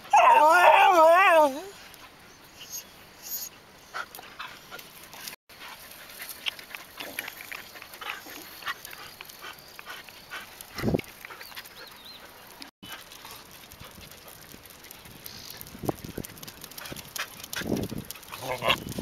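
An Indian street dog gives a loud whine about a second and a half long, its pitch wobbling quickly up and down. After that only faint taps and scuffs are heard, with a low thump about eleven seconds in.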